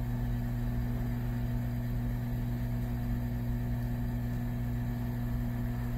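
Hot air rework gun running steadily, a low even hum with a faint hiss of air, as it blows onto a microcontroller to melt the solder under it.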